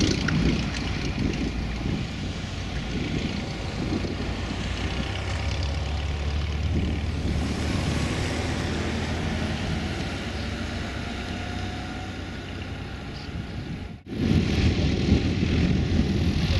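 Single-engine Van's RV-9A kit plane's piston engine and propeller running steadily, fading slowly as the plane moves away down the runway, with wind noise on the microphone. About 14 s in it cuts abruptly to another RV kit plane's engine and propeller, closer and louder.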